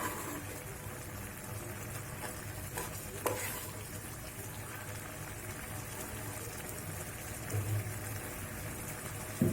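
Rice, jaggery, milk and coconut mixture in ghee cooking over a low flame in a pan, with a steady soft sizzle, and a couple of light knocks about three seconds in.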